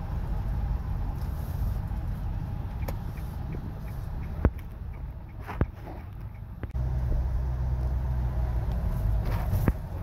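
Car driving on a wet road, heard from inside the cabin: a steady low rumble of engine and tyres. A few sharp clicks stand out, and the rumble jumps suddenly louder about two-thirds of the way in.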